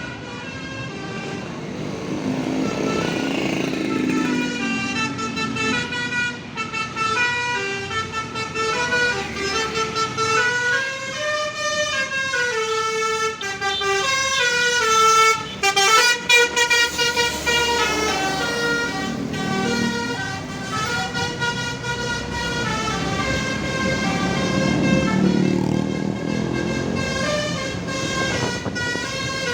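Bus telolet horn, a set of musical multi-tone air horns, playing a melody of notes stepping up and down. Underneath it the bus engine rumbles, swelling about three seconds in and again near the end.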